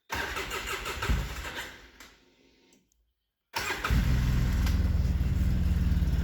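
A loud burst of noise that fades away over about two seconds. After a short silence, a vehicle engine starts and runs steadily at idle.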